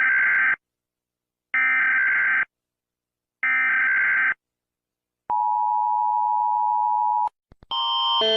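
Emergency Alert System SAME header: three bursts of digital data tones, each just under a second long and about a second apart, followed by a steady two-tone attention signal that lasts about two seconds and cuts off. After a couple of clicks, a different alarm of alternating tones starts near the end.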